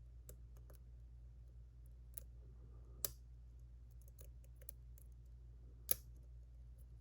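Small metallic clicks of a pick working the pins of a JPM Surf lock: scattered faint ticks with two sharper clicks about three and six seconds in, the pins clicking as they set under tension.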